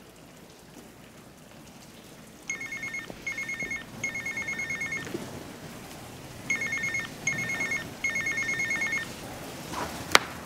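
Mobile phone ringing with an electronic trilling ringtone: two rings, each of three rapid pulsing bursts, short, short and longer. A sharp click comes near the end.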